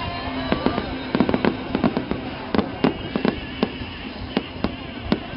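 Aerial fireworks shells bursting: a quick run of sharp bangs, thickest from about one to three and a half seconds in and sparser after, over a steady low hum.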